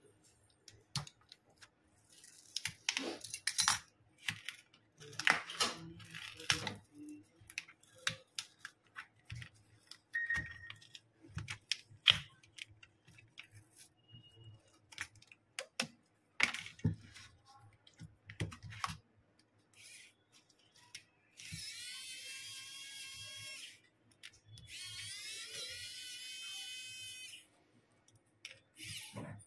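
Small hand tools clicking, tapping and scraping against plastic and metal as a smartphone's display is pried off and its frame worked on. About three quarters of the way through come two steady high-pitched stretches, each two to three seconds long.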